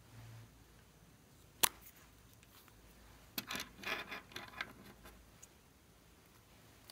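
Small plastic clicks and rustles from handling a plastic cosmetic tube: one sharp click about a second and a half in, then a quick run of clicks and scraping about halfway through.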